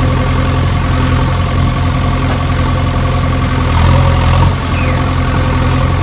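A steady, engine-like drone running evenly at one constant pitch, like an engine idling.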